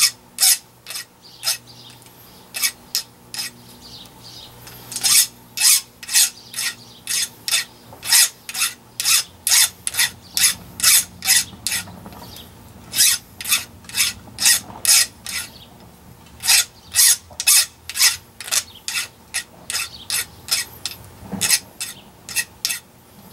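Flat hand file scraping across the edge of a small metal bracket piece, in quick strokes about two a second, in runs with a few short pauses.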